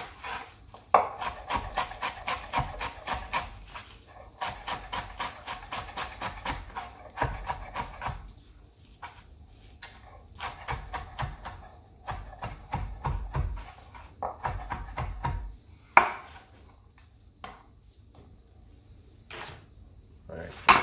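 Chef's knife chopping bunched callaloo leaves on a wooden cutting board: quick runs of rapid strokes, several a second, broken by short pauses. In the second half the runs thin out to a few single knocks, one of them sharp and loud.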